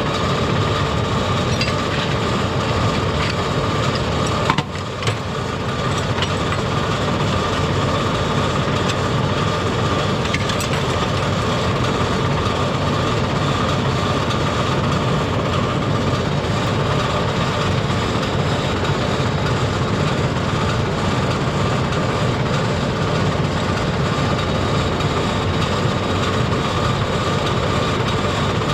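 LS compact tractor's diesel engine running steadily. About four and a half seconds in there is a brief drop in level with a couple of sharp knocks.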